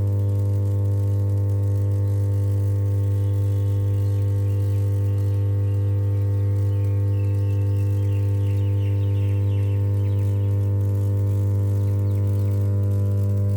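Energized power transformer humming: a steady, low mains hum centred near 100 Hz with a ladder of evenly spaced overtones, unchanging throughout.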